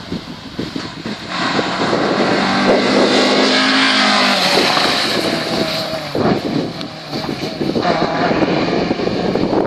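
A rally car drives past at speed with its engine working hard. The sound comes in about a second in, stays loud for about six seconds and fades near the end, with wind buffeting the microphone around it.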